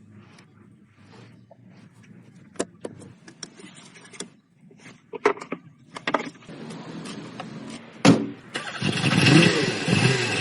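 Scattered clicks and knocks, then a sharp loud knock about eight seconds in, after which a Mercedes W124 diesel engine starts and runs loudly, its pitch rising and falling near the end.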